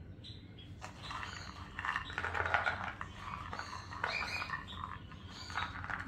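Soaked chickpeas being tipped and scraped out of a bowl onto a plate of soft food: uneven spells of soft rattling and sliding.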